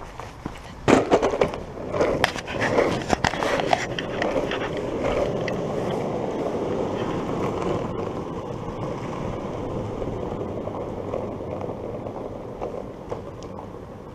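Longboard wheels rolling on a tarmac road with a steady rumble that slowly fades. In the first few seconds there is a run of sharp clacks and knocks.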